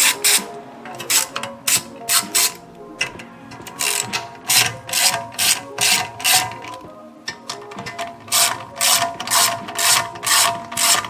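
Hand ratchet clicking in repeated short runs as the bolts of a valve spring compressor are backed off on a cylinder head, with background music underneath.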